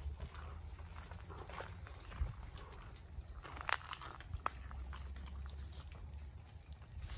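Insects trilling steadily on one high pitch, over footsteps and the brushing of leaves along a woodland trail. A low rumble runs underneath, and a sharp click comes a little past the middle.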